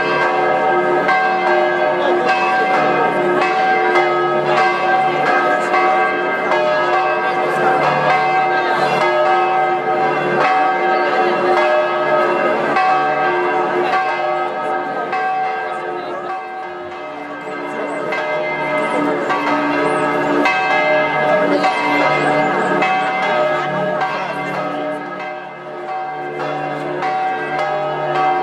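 Church bells ringing a festive peal, several bells struck rapidly and overlapping, with the peal easing briefly twice.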